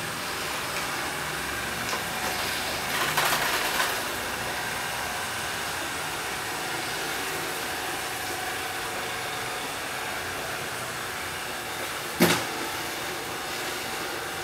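ILIFE V7S robot vacuum running on a hard floor, a steady whirring hum of its motor and brushes. A single sharp knock comes near the end.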